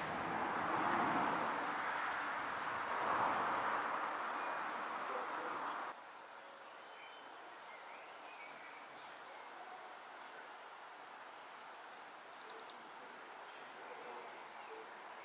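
Outdoor background ambience: a steady rushing noise for about the first six seconds cuts off abruptly. After it comes a quieter background with a few faint bird chirps and a short rapid trill about twelve seconds in.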